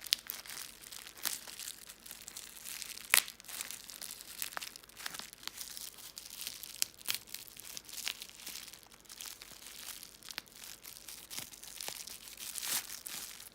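Coin packaging being unwrapped by hand: irregular crinkling and tearing with scattered clicks, and one sharper snap about three seconds in.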